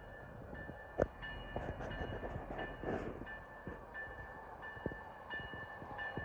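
Union Pacific local freight train rolling past, with scattered sharp clicks from the wheels and cars, the loudest about a second in. A steady high ringing tone starts and stops several times.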